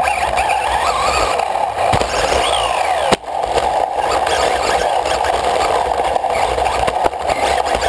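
Onboard sound of a Losi radio-controlled buggy lapping a dirt track: its motor and gears whine, rising and falling in pitch with the throttle, over a steady rumble from the chassis and tyres. The sound drops out briefly about three seconds in.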